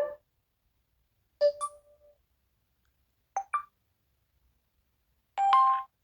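Smartphone charging-connected notification sounds from different phone brands, played one after another with silence between: a quick two-note chime, a pair of short blips, then another brief chime.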